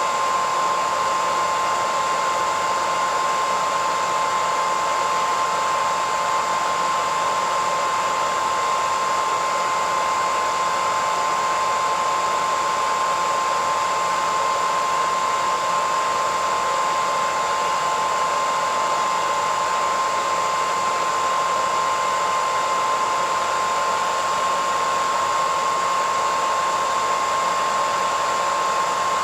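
Hairdryer running continuously at a constant setting: a steady rush of air with a high motor whine.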